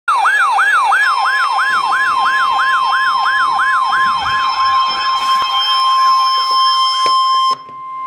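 Emergency alert tones for a coastal flood warning: a fast sweeping siren, about three sweeps a second, with a steady high beep coming in about a second in. The sweeps fade midway and the steady tone carries on until everything cuts off suddenly near the end.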